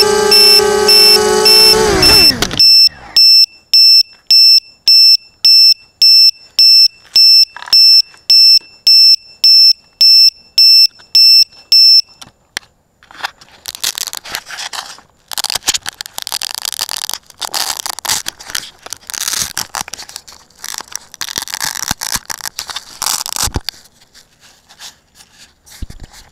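Quadcopter motors with Cobra 2300KV motors and HQProp 5040 props spinning at hover, then spooling down about two and a half seconds in. A low-voltage alarm buzzer beeps high and steady about twice a second through this and stops around twelve seconds in, as the 3S lipo is drawn down to its 3.3-volt cutoff. About ten seconds of irregular rustling and scraping handling noise follows.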